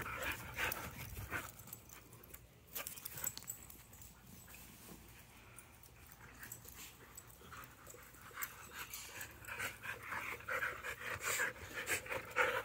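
Dogs panting in quick, rhythmic breaths, close at the start and again near the end, with a quieter stretch in between.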